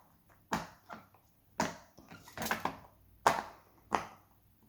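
Silicone bubbles of two small pop-it fidget toys being pressed through, giving a series of sharp pops, about seven, spaced roughly half a second to a second apart.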